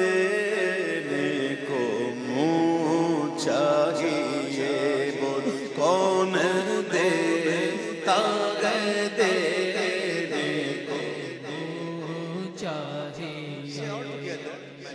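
A man singing a naat into a microphone: long, ornamented melodic lines that slide up and down, with few clear words. The singing trails off near the end.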